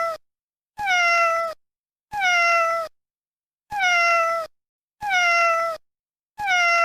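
Domestic cat meowing: the same recorded meow repeated at even intervals, about one every second and a half, each meow falling slightly in pitch.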